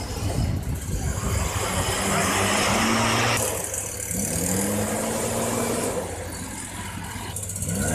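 An engine running with a steady low hum, revving up and holding three times, each time with a loud rushing hiss.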